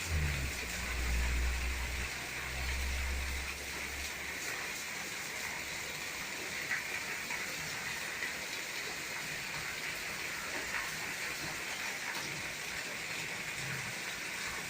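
Heavy rain falling steadily in an even hiss. A low rumble sounds in the first few seconds and dies away about four seconds in.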